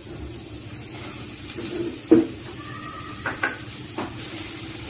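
Chopped vegetables sizzling in butter in a nonstick pan while a spoon stirs them, with a few knocks of the spoon against the pan, the loudest about two seconds in.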